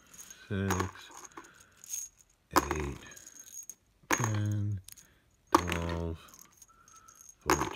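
Loose steel screws clinking and rattling against each other in a hand as they are picked through and counted, in sharp little metallic clicks.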